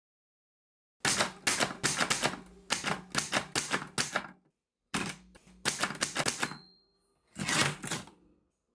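Typewriter keys clacking in quick runs of strikes, with a short pause. Then a short bell ding and one longer rasping stroke near the end, like the carriage being returned.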